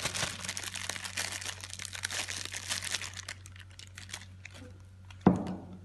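Thin plastic bag crinkling and rustling as it is peeled off a mound of filling on a plate. The crackle is dense at first and thins out after about three seconds, then a single sharp knock comes near the end.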